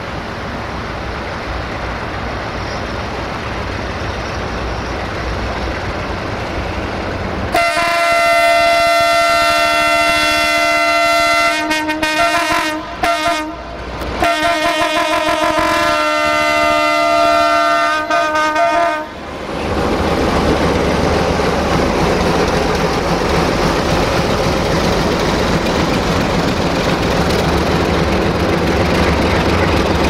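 LDE2100 (060-DA) diesel-electric locomotive with its Sulzer diesel engine, approaching and growing louder. About eight seconds in its horn sounds a long multi-tone blast, broken by a few short toots midway, then another long blast that stops sharply. After that the locomotive's engine runs loud and steady as it passes with its freight wagons.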